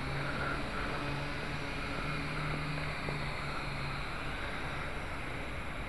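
Toy quadcopter motors and propellers running with a steady buzz and hiss, heard through a small onboard camera microphone; a low hum fades out about four seconds in.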